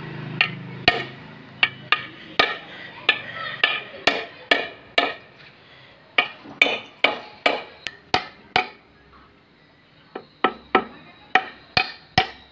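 Small cross-peen hammer driving nails into a wooden batten at a window-frame joint: sharp, separate blows about two a second. The blows pause briefly about five seconds in and again around nine to ten seconds, then resume.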